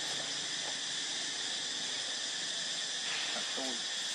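Steady, high-pitched drone of an insect chorus in tropical forest trees.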